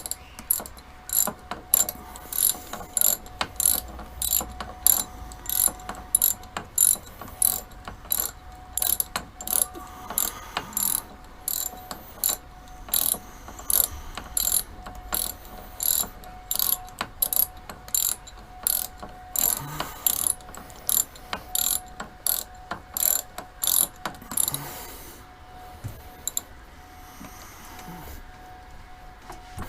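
Ratchet wrench clicking in steady strokes, about two clicks a second, stopping about 25 seconds in.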